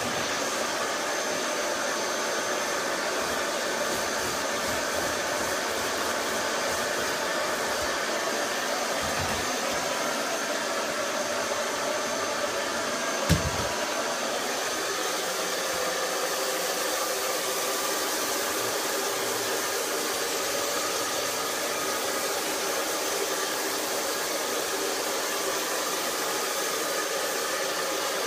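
Drybar Buttercup hair dryer running steadily with an even rushing whir. There is one short thump about 13 seconds in.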